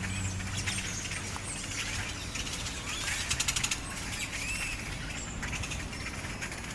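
A large flock of hundreds of birds roosting in a tree, many chirping and calling at once with short rising and falling whistles. There is a fast rattling call about three seconds in.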